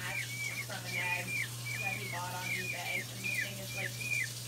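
Peachick peeping repeatedly, short calls that rise briefly then fall, about two to three a second.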